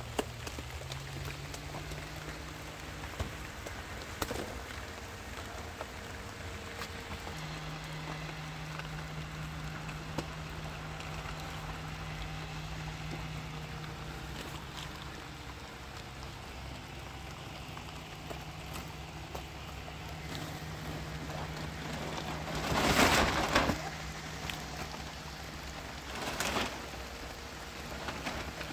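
Rain falling, an even hiss dotted with small drop ticks, with a low steady hum underneath from about a quarter of the way in. Near the end a louder rush swells for about a second and a half, and a shorter one follows a few seconds later.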